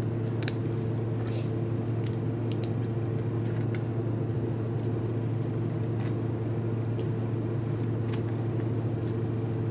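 A steady low hum, with scattered small clicks and taps of plastic Lego pieces being picked out and handled.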